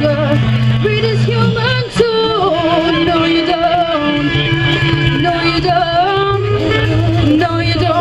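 Live rock band playing an instrumental passage: a lead line that bends in pitch over held bass notes and drums.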